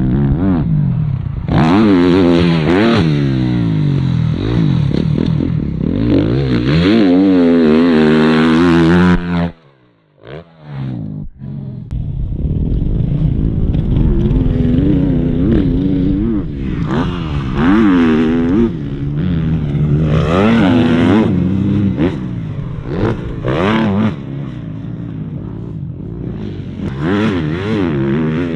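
Suzuki RM-Z250's single-cylinder four-stroke engine revving up and down over and over as it is ridden hard on a motocross track. The sound drops out briefly about ten seconds in, then the rising and falling revs carry on.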